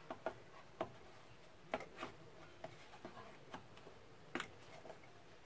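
Faint, irregular clicks and taps of hands handling and refitting a rubber intake hose and its clamp on an engine's air intake, with a couple of sharper knocks about a third and three-quarters of the way through.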